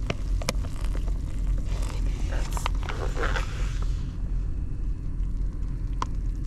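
Crinkling and scraping of a freeze-dried meal pouch and spoon, with a few light clicks, over a steady low rumble.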